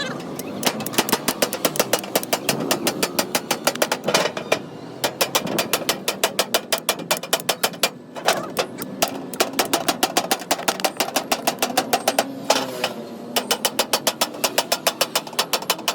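Rapid repeated tapping or knocking strikes, several a second, in runs broken by brief pauses.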